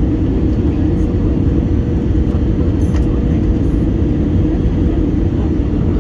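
Steady rumble and rush of an Airbus A320-200's engines and airflow, heard from inside the passenger cabin, with a faint steady hum through it.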